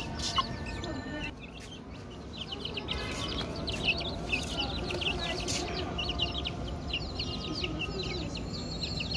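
Newborn chicks peeping: many short, high cheeps overlapping, thinning out briefly near the start, then coming thick and fast.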